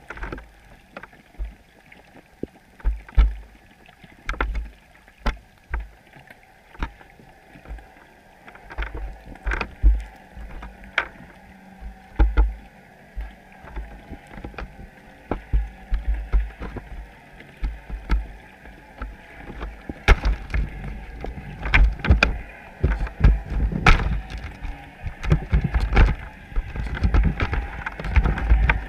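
Irregular muffled knocks, clicks and low thumps picked up underwater through a GoPro's waterproof housing fixed to a chum pot, the knocking growing busier and louder in the last third.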